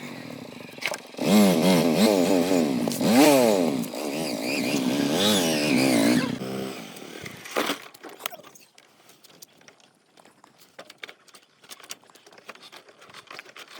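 Small engine revving up and down again and again, its pitch swinging high and low, then dying away about six or seven seconds in. After that there are only faint scattered clicks and knocks.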